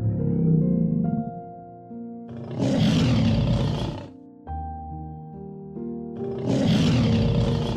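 Lion roaring twice, each roar about a second and a half long and a few seconds apart, over light background music.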